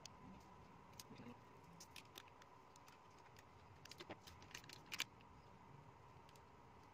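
Faint, scattered clicks and taps of a smartphone's plastic frame and parts being handled and pressed into place by hand, with a sharper double click about five seconds in, over a faint steady hum.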